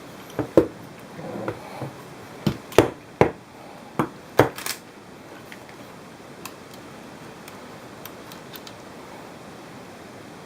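A series of sharp clicks and knocks, about ten in the first five seconds, then a few faint ticks, over a steady hiss: a GH-100 pistol grip being handled and worked.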